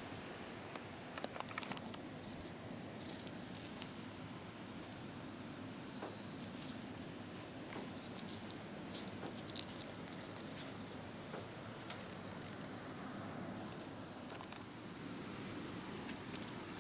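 A small bird calling over and over: short, high chirps that drop in pitch, about one a second, over faint outdoor background noise. A few light clicks come near the start.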